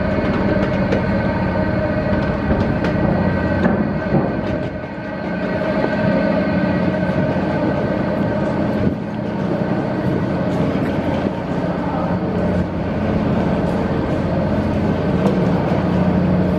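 Steady mechanical drone of a moored ship's machinery, a low hum with several held tones, echoing in the big vehicle deck, with scattered light knocks.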